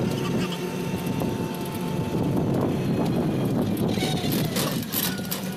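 Steady engine and road noise of a moving vehicle, heard from on board, with a few short clicks near the end.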